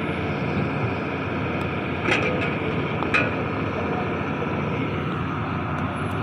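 Borewell drilling rig's engine and machinery running steadily, with two short metallic clanks about two and three seconds in.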